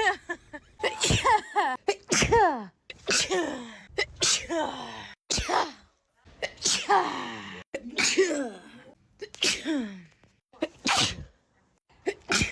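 A person sneezing over and over in a sneezing fit, about one sneeze a second, many ending in a voiced cry that falls in pitch.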